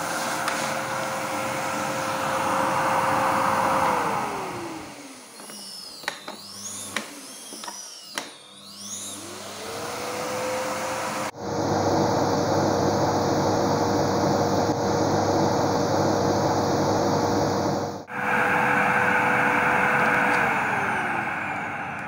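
Electrolux Power Force EPF 66RR vacuum cleaner's motor running steadily, then winding down with a falling pitch about four seconds in. After a few clicks it spins back up with a rising pitch and runs steadily, then winds down once more near the end.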